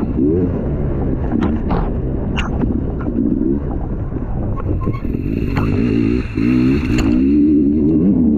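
Dirt bike engine revving up and down as it is ridden hard along a muddy trail, with scattered sharp knocks and clatter. The throttle eases off for a few seconds in the middle, then the engine revs up again near the end.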